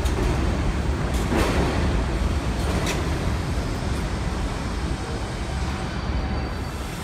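R68A subway train running past the platform without stopping: a steady rumble of wheels on rail, with a few sharp clicks, slowly easing off toward the end.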